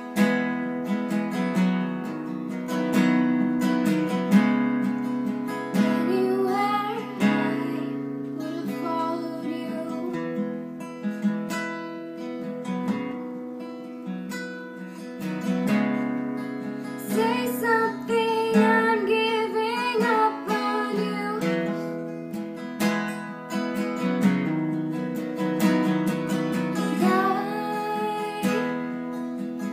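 A young female voice singing a slow ballad over steady acoustic guitar strumming, the voice coming in and out between lines.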